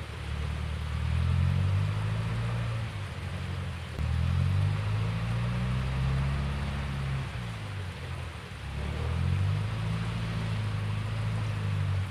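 A low engine drone whose pitch slides up and down as the revs change, easing off briefly twice.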